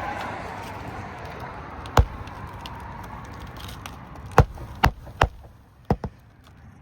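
Six sharp hammer knocks on an asphalt shingle roof, one about two seconds in and five more in quick, uneven succession, as the old shingle nails are worked out. A rushing background noise fades away in the first second or so.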